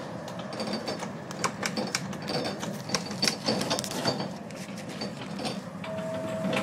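Irregular clicking and rattling in the driver's cab of a moving Type E1 tram, over a steady running rumble; a steady tone sets in about six seconds in.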